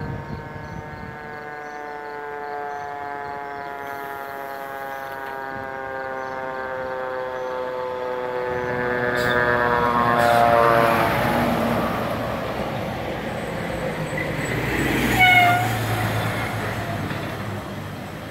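Fire engine air horn held in one long, steady blast as the truck approaches, dropping in pitch as it passes about ten seconds in, over the rumble of the truck's engine. A short, loud horn blast follows about fifteen seconds in.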